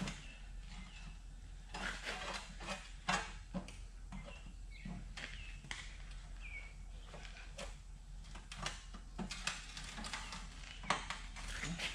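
Irregular light knocks, clicks and rattles of a truck radiator's metal side pieces and brackets being handled and fitted into the frame's bottom track, with a few faint, short high chirps.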